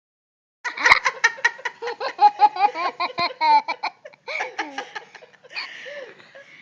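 A person laughing in a long run of quick, rhythmic bursts that thins out over the last couple of seconds, with a sharp click about a second in.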